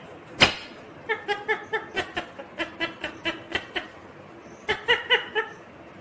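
Rose-ringed parakeet giving runs of short, rapid chuckling calls like mimicked laughter, about five a second, with a sharp click about half a second in.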